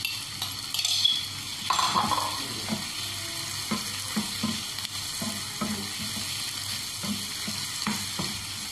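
Fried chicken pieces scraped off a plate into a frying pan of sizzling onion, capsicum and carrot, with a few loud knocks and scrapes, then a wooden spatula stirring the stir-fry in short strokes about twice a second over a steady sizzle.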